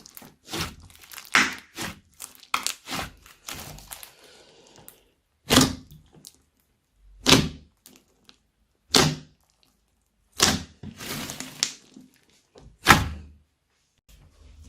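Slime being worked by hand, giving off sticky pops and clicks. For the first few seconds they come in a quick, crackly run. After that there are single loud pops about every second and a half.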